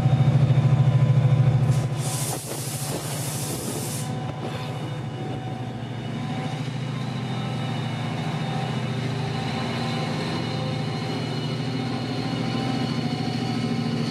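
Class 68 diesel-electric locomotive's Caterpillar V16 diesel engine working hard as it pulls the train away, loudest and throbbing for the first couple of seconds. A brief hiss comes about two seconds in. After that the engine runs on steadily, under a thin whine that slowly rises in pitch as the train gathers speed.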